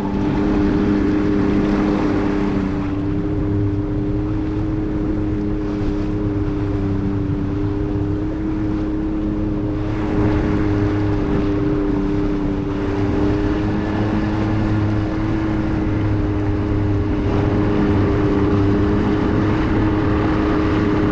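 Yamaha 50 outboard motor running at a steady trolling speed of about 6 miles an hour, an even, unchanging hum.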